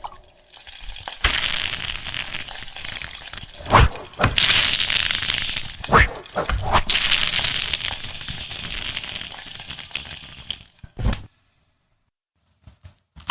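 Human beatboxer's mouth sound effects: a long sizzling hiss broken by sharp cracks about 4, 6 and 7 seconds in, ending in a short burst and then silence.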